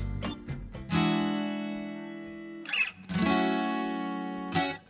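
Background music: strummed acoustic guitar chords, each left to ring out, the first about a second in and the next about three seconds in, with a quick strum near the end, as the previous livelier track fades away at the start.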